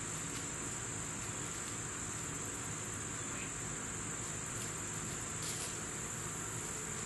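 Steady high-pitched chorus of insects, unbroken throughout, over a faint low hum.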